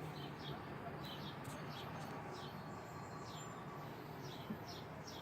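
Small birds chirping faintly: a string of short, high, quickly falling chirps that keeps repeating, over a low steady hum.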